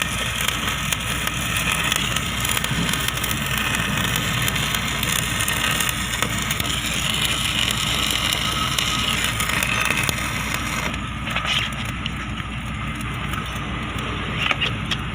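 Electric arc welding with a stick electrode: the arc gives a steady frying crackle and hiss that drops off about eleven seconds in, over a constant low hum.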